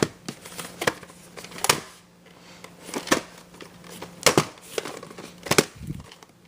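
Plastic VHS cassette and case being handled, with a series of sharp clicks and crinkly rustles about once a second over a faint steady hum.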